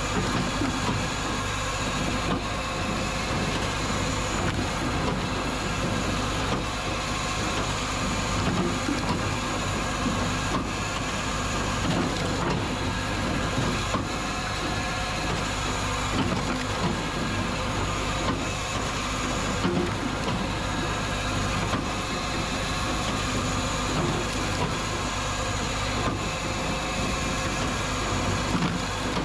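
Hakkipilke 1x37 firewood processor running steadily while a log is sawn and split into firewood, with faint knocks every second or two over the machine's drone.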